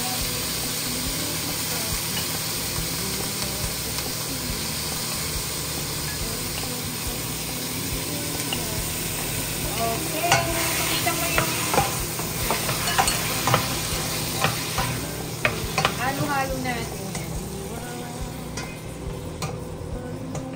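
Marinated pork cubes sizzling in a stainless steel pan as they are stirred with a wooden spatula. From about halfway, the spatula knocks and scrapes repeatedly against the pan. The sizzle eases toward the end.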